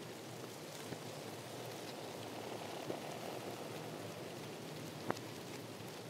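Steady water hiss with scattered faint ticks and one sharper click about five seconds in.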